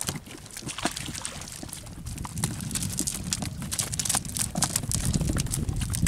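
Irregular knocks and slaps of live fish flapping on the wooden deck of a small boat as they are picked out of a cast net, with the rustle of the net being handled.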